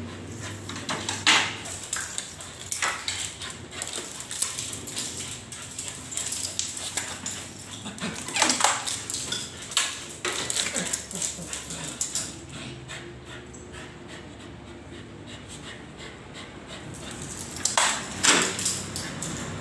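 A Shih Tzu and a Corgi scuffling with each other: whimpers and a few sharp barks, the loudest about a second in, near the middle and near the end, among many small clicks and scuffs.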